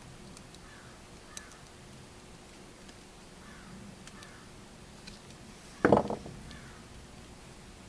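One short, sharp knock about six seconds in, like a hard object set down or bumped, over faint cawing of crows repeating in the background.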